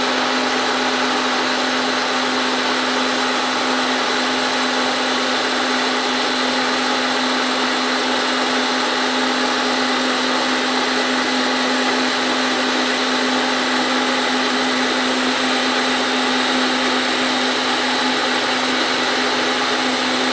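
Milling machine with a Volstro rotary milling head running, a steady, even hum with a fixed whine, as the end mill takes a very light cut in aluminum.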